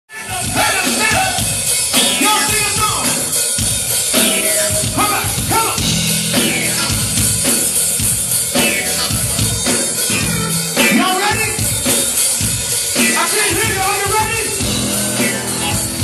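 Live funk band playing at full volume: drum kit beat, bass line and singing voices over the band.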